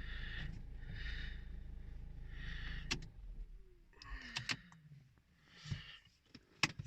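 Volvo V50 2-liter diesel engine running, then cut off about three seconds in with a click, followed by a falling whine over about two seconds as it winds down. A few clicks and knocks follow near the end.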